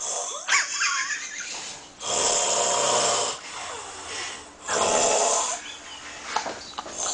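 A man snoring heavily in his sleep: two loud snores about two and a half seconds apart, with softer breathing sounds between them.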